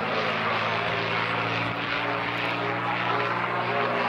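P-51D Mustang's Merlin V12 engine and propeller running steadily as the fighter rolls and dives overhead.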